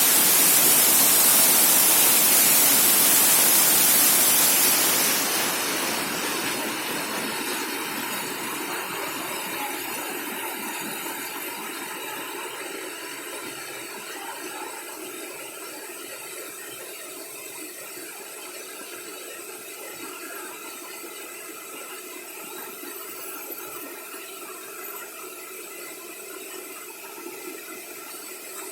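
Waterfall rushing loudly, then fading steadily from about five seconds in to a much quieter, even rush with faint steady tones over it.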